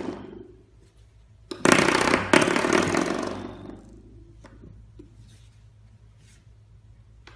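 Metal coil-spring door stopper flicked by a puppy, twanging with a loud buzzing boing that starts about a second and a half in, is set off again a moment later, and dies away over about two seconds.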